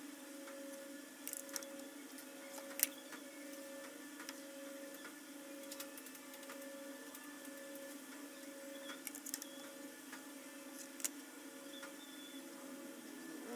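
A steady mechanical hum with a regularly pulsing tone, over which a few sharp clicks and taps sound as PVC pipe rollers on wire axles are handled over a plastic bucket; the loudest clicks come about three seconds in and about eleven seconds in.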